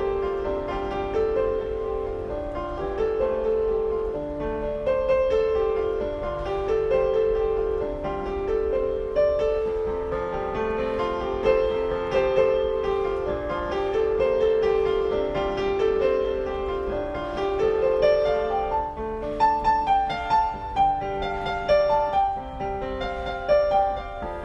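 Piano music: a slow melody of held notes over chords, turning busier with quicker notes in the last few seconds.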